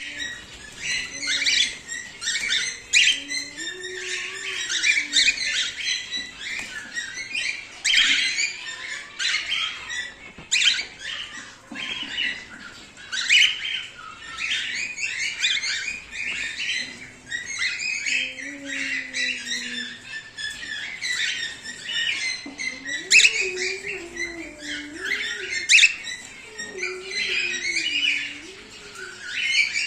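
Cockatiel chirping and chattering almost without pause, short high calls overlapping with the odd squawk.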